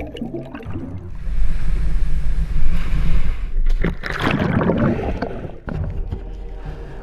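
Sea surf and wind noise on a GoPro at the water's surface. About four seconds in a wave breaks over the diver in a loud splash. The sound then turns dull and low as the camera goes underwater.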